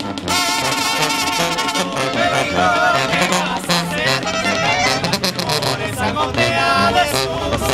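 Mexican banda brass band with sousaphone and drums playing, while two men sing along with the band.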